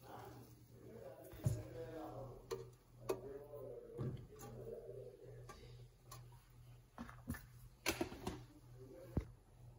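Faint voices in the background over a steady low hum, with a few light clicks and knocks scattered through.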